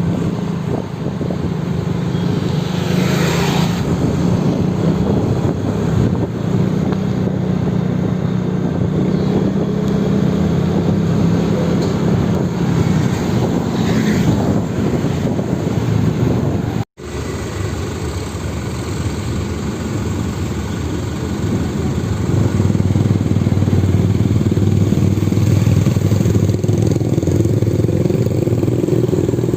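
Roadside traffic dominated by heavy truck diesel engines running close by, a steady low engine hum. The sound drops out for an instant about 17 seconds in, then a lower, louder engine note carries on.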